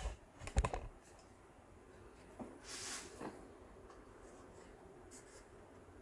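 Handling noise from a large Batmobile model being turned around on its display stand. A few light clicks and knocks come in the first second, then a brief rubbing sound about three seconds in and faint ticks near the end.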